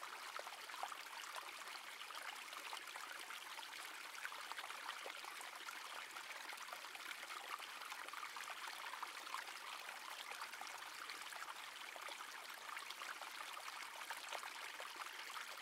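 Faint, steady babble of a shallow creek running over stones and riffles.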